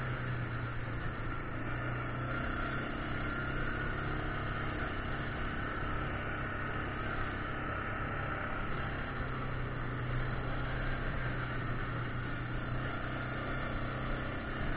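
Yamaha Grizzly 600 ATV's single-cylinder four-stroke engine running steadily under way on a gravel trail, a low hum under a steady wash of tyre and wind noise.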